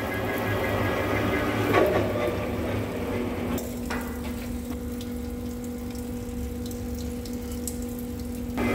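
Metal lathe turning a hydraulic cylinder rod under flood coolant: a carbide insert cuts for about the first three and a half seconds. Then the cutting stops, leaving a steady hum and the splash of the coolant stream.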